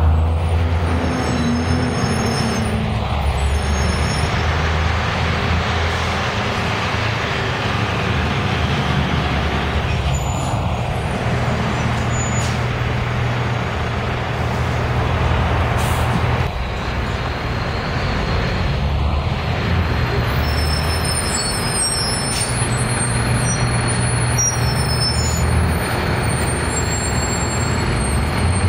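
Nova Bus RTS-06 transit bus with its diesel engine running steadily as it stands at a stop, then pulling away past close by. A brief air hiss sounds about halfway through.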